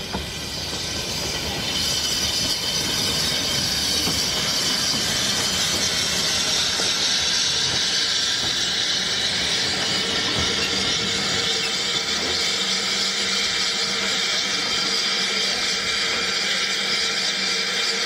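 Narrow-gauge steam locomotive letting off steam: a loud, steady hiss that swells about two seconds in and then holds.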